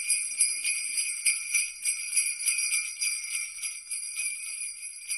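Jingle bells shaking alone as the tail of a Christmas song, the rapid jingling growing steadily quieter.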